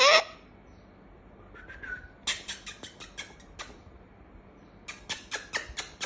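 Galah (rose-breasted cockatoo) making sharp, rapid clicking sounds, about five clicks a second, in three short runs, with a brief squawk right at the start.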